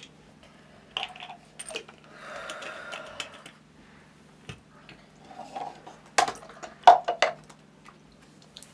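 Small hard objects being handled on a hard floor: clicks and knocks of a small glass medicine bottle and a cup being picked up and set down, with a soft shuffling stretch about two seconds in and the sharpest knocks near the end, over a faint low hum.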